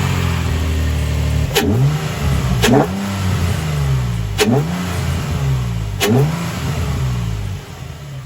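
Nissan 350Z's VQ35DE V6 engine, breathing through a JWT Pop Charger short ram intake, running just after its first start-up and blipped four times, each rev rising quickly and falling back.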